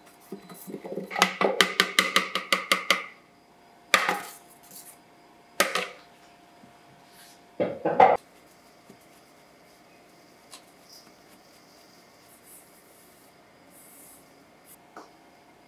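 A stainless steel mesh strainer rattling and knocking against a stainless steel bowl while dry almond flour and sugar are sifted through it. There is a quick run of about six metallic knocks a second, then a few single knocks and a final close pair.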